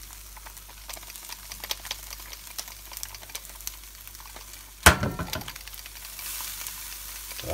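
Oil sizzling and crackling around bread cubes frying in a pan, with many small pops. About five seconds in there is one sharp, loud knock.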